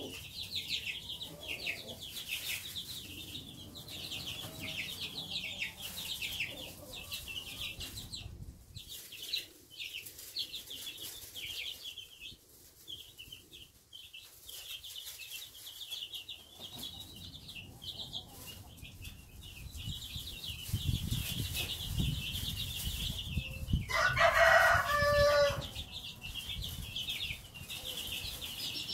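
A brood of two-week-old Marans chicks peeping continuously, many short high peeps overlapping, thinning out for a few seconds midway. About two-thirds of the way through, a single louder, lower-pitched call lasts a second or so.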